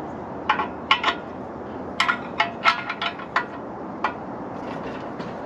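Sharp metallic clicks and clinks, about eight at irregular intervals over the first four seconds, from a wrench working against the metal exhaust on a seized O2 sensor.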